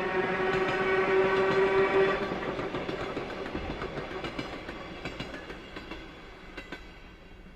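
A passing train: its horn sounds a steady note and cuts off about two seconds in, then the clatter of wheels over the rail joints fades as the train moves away.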